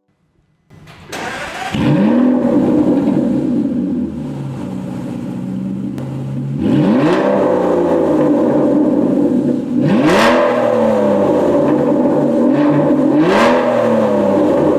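High-performance car engine cold-started: a short crank, then it fires about a second in with a quick rev and settles to a steady fast idle. The throttle is blipped three times, each a brief rise and fall in pitch.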